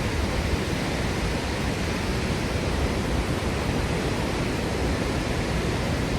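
Steady rushing noise of Victoria Falls' water and spray, with no pitch or rhythm, heavy in the bass.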